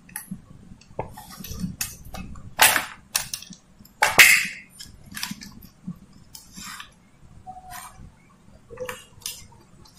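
Hands working insulated copper wires onto the socket terminals of a plastic extension board: scattered clicks, taps and rustles of wire and plastic, the loudest about two and a half and four seconds in.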